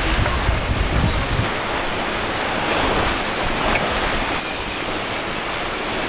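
Sea water rushing and splashing past the hull of a small sailboat under way in choppy open ocean, with wind on the microphone. The low wind rumble is heavy for the first second and a half, then gives way to a steady rush of water.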